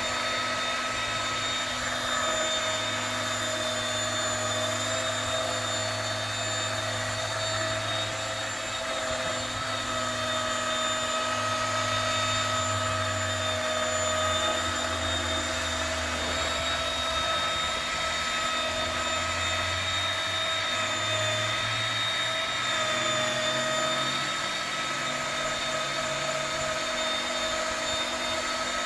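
Flex 14-2 rotary polisher running steadily on car paint: a constant motor whine, with a low hum underneath that drifts up and down in pitch as the pad works the surface.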